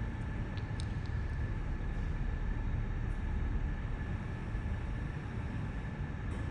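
Mobile crane's engine running steadily: a low rumble with a faint steady whine above it.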